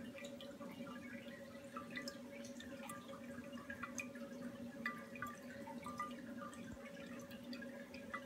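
Lavender distillate dripping from the still's condenser into a glass essential-oil separator: irregular, quick plinks of drops landing in liquid. A steady low hum runs underneath.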